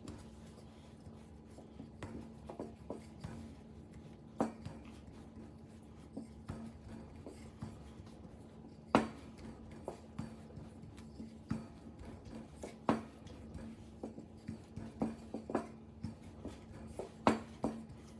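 Hands rolling and handling mantou dough on a work surface: soft rubbing with scattered light knocks and taps, a few louder ones, over a low steady hum.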